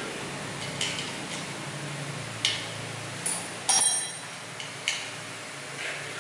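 Small metal parts of a Vinawind ceiling fan's blade fittings clicking and clinking as they are handled: about five separate sharp clicks, the loudest about three and a half seconds in with a brief metallic ring. A faint steady low hum runs underneath.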